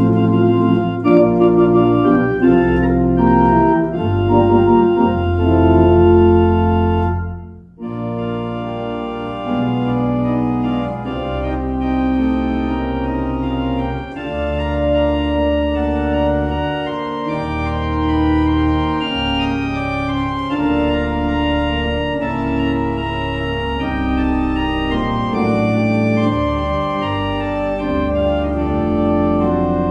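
Church organ playing held chords. The music breaks off briefly about seven and a half seconds in, then goes on more softly.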